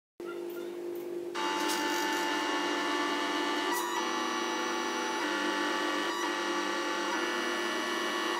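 Mini CNC plotter built from salvaged DVD-drive stepper motors drawing with a pen: a whine of several steady tones that gets louder about a second in and changes pitch each time the pen changes direction, with short clicks at some of the turns.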